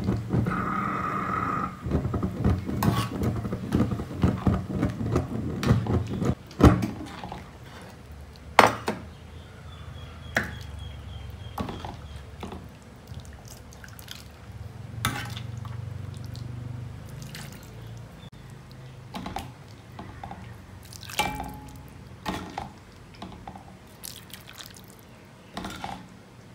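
Thick lentil curry in a metal wok: liquid plops and drips, with a denser run of clicks and knocks for the first six or seven seconds, then scattered single plops and clicks.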